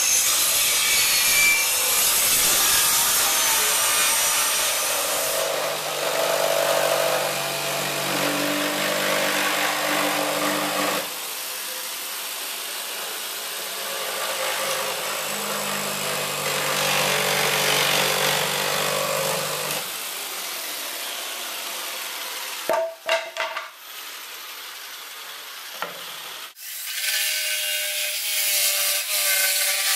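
Power saws cutting pallet wood: a circular saw cutting through the pallet's boards, then, after a few sharp clicks, a jigsaw cutting a pallet deck board near the end.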